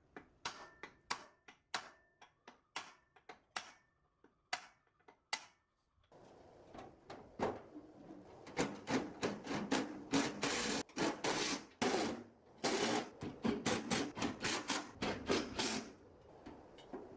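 Hand-tool work on metal parts: separate sharp taps at about two a second, a few with a brief metallic ring. From about six seconds in it turns into a denser, louder run of rapid knocking and scraping that eases off near the end.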